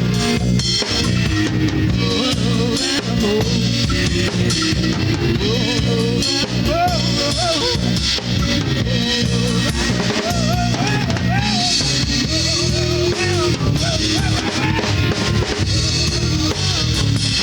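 Garage alternative-rock band playing an instrumental passage, recorded live on cassette: a drum kit with bass drum and snare leads, over bass and electric guitar, with a wavering melodic line on top.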